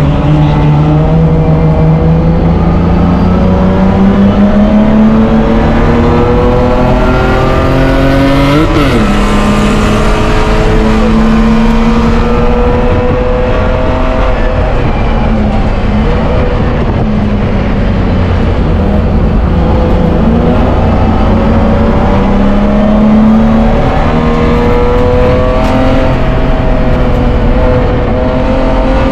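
BMW E30 race car's straight-six engine running at high revs under load, heard from inside the stripped cockpit, its pitch climbing slowly and steadily along the straights. About nine seconds in the revs spike sharply and drop back.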